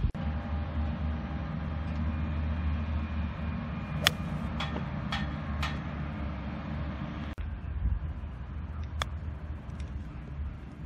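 Golf clubs striking balls: a few sharp clicks, the loudest about four seconds in and another about nine seconds in, over a steady low rumble.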